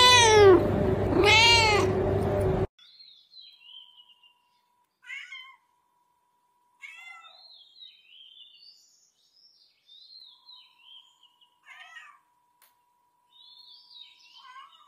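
Domestic cat meowing twice, long and loud, each call rising then falling in pitch. About three seconds in the level drops sharply. After that come a few faint short meows mixed with high, quick chirping and a faint steady tone.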